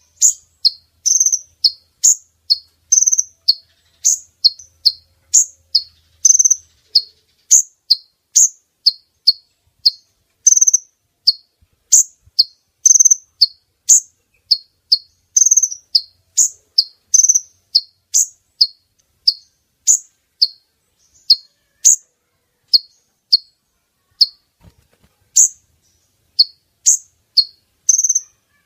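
Female kolibri ninja (konin) sunbird calling: a rapid, unbroken series of short, high, sharp chirps, about two a second, many dropping quickly in pitch. It is a bird-lure call used to draw in males.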